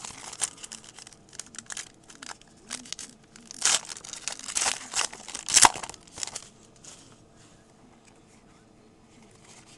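Foil wrapper of a trading card pack being torn open and crinkled, in irregular crackles that die away about two-thirds of the way in.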